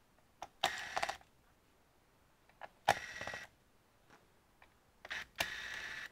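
Cordless electric screwdriver whirring in three short bursts, each under a second, with a light click just before each, as it backs out the screws of a laptop's bottom cover.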